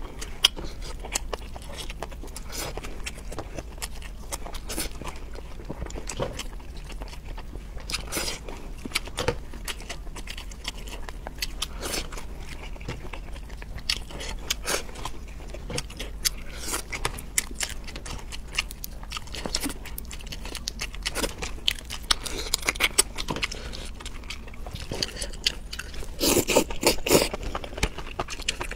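Close-miked eating sounds: cooked prawn shells cracking and crackling as they are peeled by hand, with biting and wet chewing. There is a louder stretch of crackling near the end.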